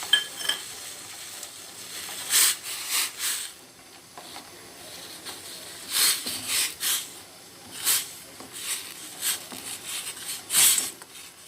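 A spoon stirring neem leaves, stems and spices in a pot of water, in irregular scraping strokes, with a short metallic clink right at the start.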